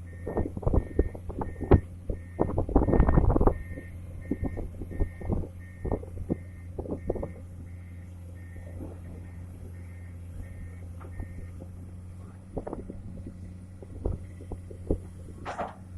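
Excavator's diesel engine running steadily, its warning alarm beeping about twice a second until it stops about three-quarters of the way through. Sharp metal clanks and knocks come throughout, heaviest in the first few seconds.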